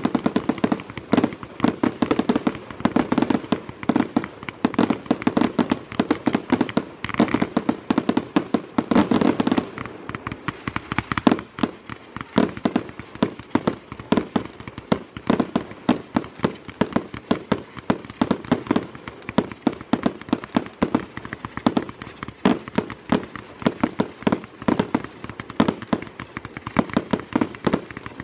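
Aerial fireworks going off in a rapid, continuous barrage of bangs and crackles, several reports a second, a little denser and louder over the first ten seconds or so.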